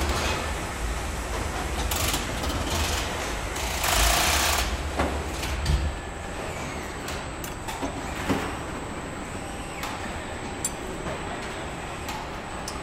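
Car assembly line noise: a low machine rumble for the first six seconds, short bursts of hiss about two and four seconds in, and scattered clicks and knocks from tools and parts.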